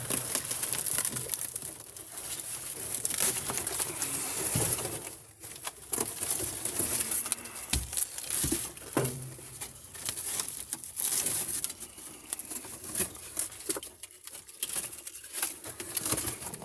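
Fiberboard headliner panel with its fabric covering being torn and pulled down inside a truck cab: irregular tearing, crinkling and scraping, with a few knocks.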